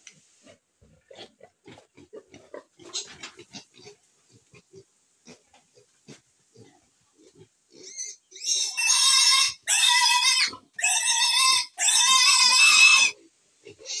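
A piglet squealing loudly in four long, high screams, starting about eight and a half seconds in, as it is grabbed and held up for a vaccination. Before that there are only soft grunts and shuffling from the pen.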